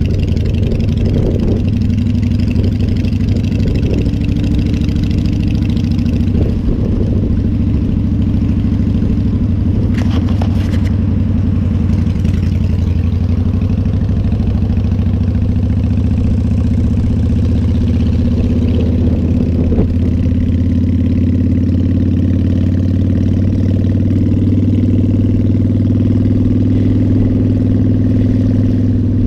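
Motorcycle engine running steadily under the rider as it travels in traffic, a constant low drone with a few faint clicks about ten seconds in.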